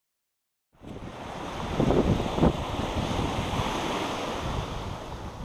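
Small surf waves washing up a sandy beach, with wind buffeting the microphone; it starts suddenly under a second in after silence and swells around two seconds in.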